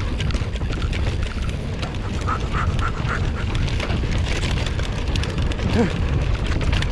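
Mountain bike ridden fast down a dirt track, heard from a rider-mounted camera: wind buffets the microphone over tyre roar and rattling of the bike on rough ground. About two to three seconds in comes a short run of quick squeaks.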